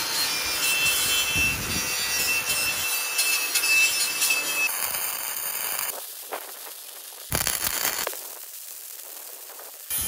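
Cordless angle grinder with a wire wheel spinning against steel, a steady high whine, for about the first five seconds. Then a wire-feed welder's arc crackles and sizzles in short runs, with one louder burst about seven seconds in.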